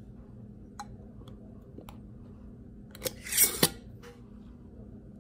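Small handling clicks, then about three seconds in a loud half-second rasp with a sharp click at each end.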